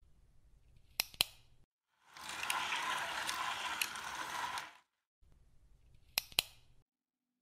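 Small ratcheting mechanism: two sharp clicks in quick succession, then a whirring ratchet for about three seconds with a few clicks in it, then two more sharp clicks.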